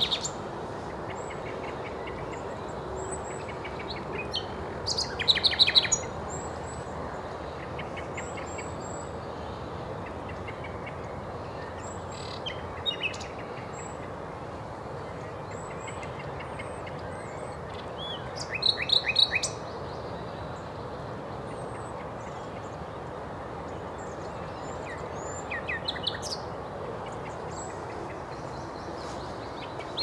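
Common nightingale singing in loud phrases of rapid repeated notes, each a second or two long, with long pauses of several seconds between them. Four phrases come, the loudest about five seconds in and about nineteen seconds in. Faint high notes and a steady background hiss fill the gaps.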